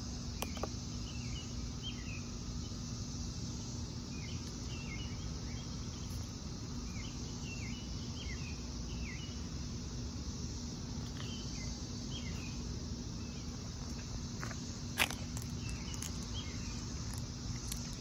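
A steady insect drone with short chirping bird calls, repeated in small groups, over a low steady hum and rumble. A single sharp click sounds about fifteen seconds in.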